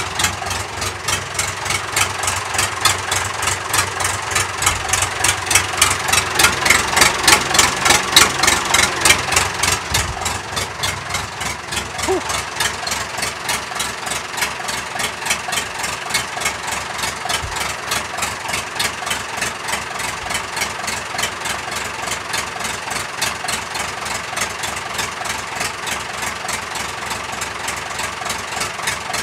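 David Brown 990 tractor's four-cylinder diesel engine running on its freshly rebuilt cylinder head and valve seats, with an even, rapid firing beat. It is a little louder for the first nine seconds or so, then settles to a steady idle.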